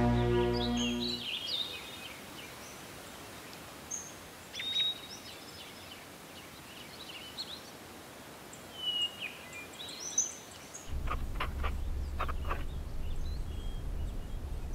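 Small birds chirping and calling in short scattered phrases over a faint hiss, as closing music fades out at the start. Near the end a low steady hum comes in, with a few short ticks.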